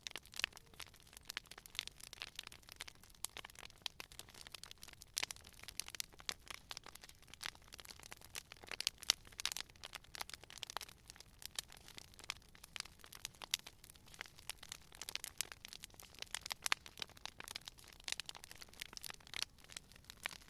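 Wood fire crackling: a dense, irregular run of sharp pops and snaps, many each second, over a faint low hiss.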